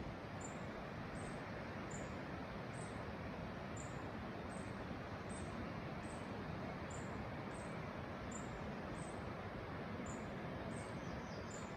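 Rainforest ambience: a steady rushing noise, with a short, high chirp from an insect or bird repeating a little more than once a second.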